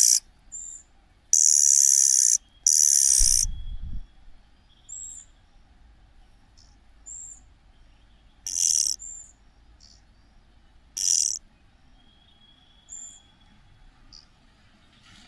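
A young cuckoo's harsh, high begging calls, each about a second long: three in the first few seconds, then two more later on. Short, high chirps come in between.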